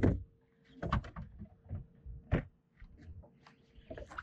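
Irregular knocks and thumps on a boat while an angler fights a fish. The loudest come right at the start, about a second in, and about two and a half seconds in, with lighter clicks between, over a faint steady hum.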